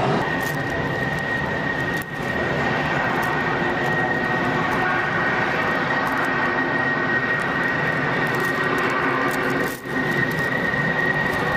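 Military jet engines running as aircraft taxi on the runway: a steady high whine over a broad rush. The level dips briefly twice, about two seconds in and again near ten seconds.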